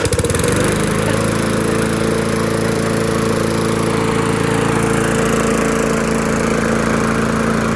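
Riding lawn mower's small gasoline engine catching almost at once and running steadily at full throttle, its broken throttle cable zip-tied open.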